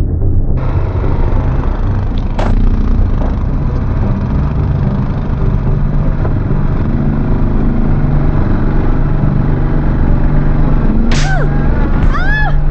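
ATV engine running as the quad rides over a bumpy dirt trail, its pitch shifting with the throttle, with a couple of sharp knocks from bumps. Near the end a person's voice calls out over the engine.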